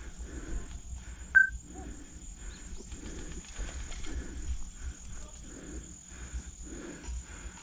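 Footsteps of a player walking over woodland ground, about two steps a second, with a steady high thin whine like an insect's drone behind them. About a second and a half in there is a single sharp click.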